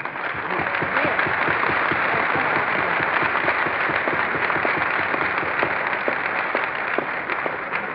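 An audience applauding the end of a speech: dense clapping from many hands that builds within the first second, holds steady and thins slightly near the end. It comes through an old radio broadcast recording with a narrow, muffled top end.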